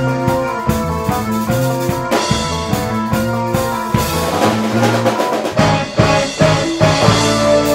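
Rock band playing: a drum kit with cymbal and drum hits over sustained keyboard and electric bass notes. The drumming thins out briefly past the middle, then comes back with sharp accented hits near the end.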